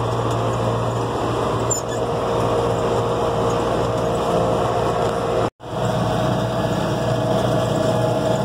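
John Deere 6400 tractor's diesel engine running steadily while working a New Holland 648 round baler, heard from inside the cab. The sound cuts out for an instant about five and a half seconds in.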